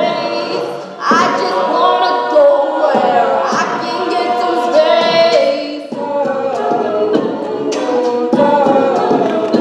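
Mixed-voice a cappella group singing in close harmony, with short breaks between phrases about a second in and again near six seconds.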